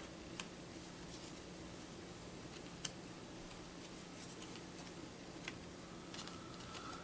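Thin paper game cards being handled and taken off a deck one at a time: a short, sharp click about every two and a half seconds, three of them clear, over a faint steady low hum.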